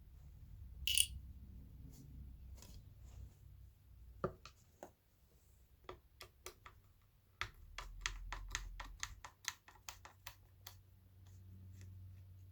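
Hands and tools working on a subwoofer's plastic casing during disassembly: a short scrape about a second in, a knock, then a run of rapid clicks, about five a second, for around three seconds.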